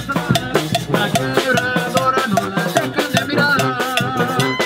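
Live Mexican banda playing an instrumental passage. Sousaphone carries the bass, trumpet and clarinet the melody, and drum kit and bass drum keep a steady beat, with a metal scraper rasping in rhythm.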